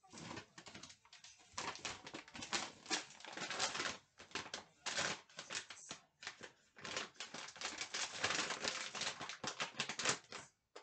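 Crinkly plastic food packaging being handled in the hands, a dense crackling run with a few short pauses.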